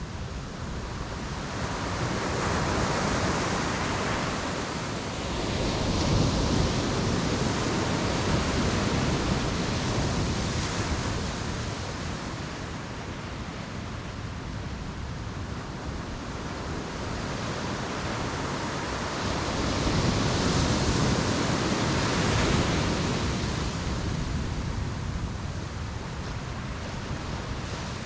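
Ocean waves washing onto a beach: a steady rush of surf that swells twice, once a couple of seconds in and again about twenty seconds in, then falls back.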